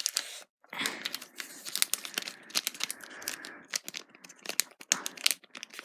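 Packaging being handled and opened by hand: continuous crinkling and tearing with many small sharp crackles, starting after a brief pause.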